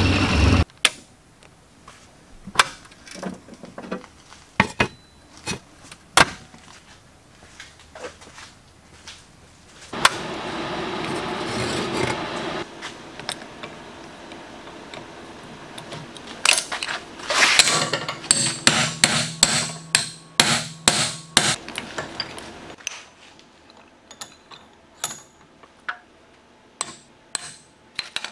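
A milling machine cuts aluminium for a moment and then stops, followed by hand work at a bench vise: scattered sharp metallic knocks and taps of tools on the aluminium part, with a quick run of repeated knocks over a low hum a little past the middle.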